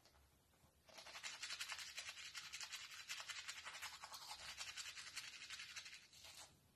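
Toothbrush scrubbing teeth in quick back-and-forth strokes, a rapid scratchy brushing that starts about a second in and stops near the end.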